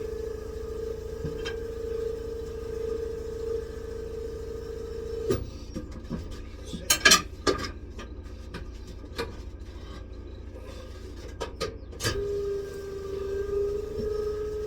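An old caravan tyre being worked off its wheel rim, with scraping and rubbing of rubber and metal. A steady machine hum runs for the first five seconds, stops, and comes back about twelve seconds in. In the gap there are several sharp knocks, the loudest about seven seconds in.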